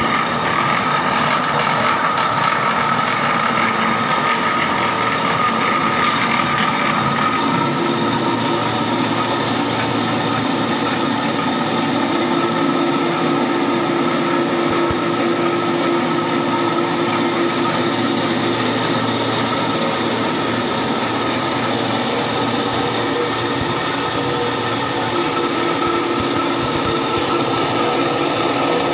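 Small cattle-feed pellet machine running, a steady mechanical hum and grinding with a constant high tone. Feed mash is being pressed through it into pellets.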